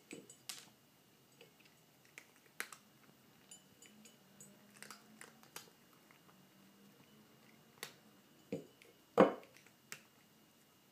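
A kitten crunching dry cat food kibble from a plate: scattered sharp crunches and clicks, with one louder clack about nine seconds in.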